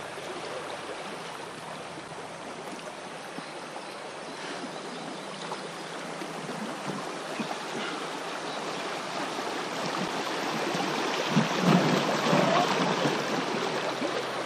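Rushing, gurgling water of a shallow rocky river riffle around a drifting inflatable boat, growing louder toward the end. A few dull knocks stand out a few seconds before the end.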